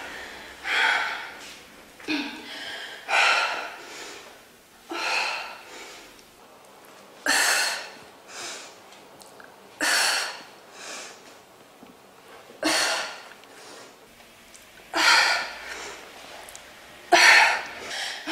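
A woman breathing hard during a bodyweight workout: short, forceful breaths out, one every one to two seconds or so, a few of them with a short voiced grunt.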